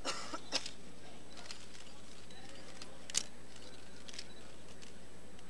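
A few sharp camera shutter clicks, spaced irregularly and the loudest about three seconds in, over a steady electrical hum in the sound feed.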